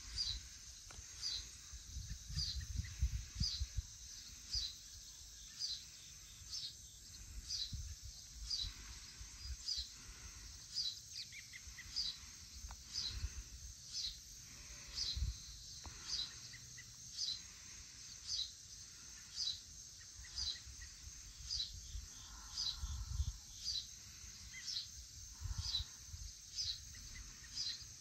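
Evening outdoor chorus: a steady high insect hum with a short high chirp repeating about every three-quarters of a second, and now and then a low rumble.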